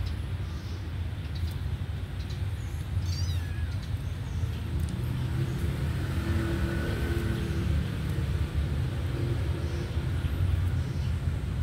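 Steady low outdoor rumble, with a vehicle passing by from about five to eight seconds in. About three seconds in there is a short high, wavering call that falls in pitch.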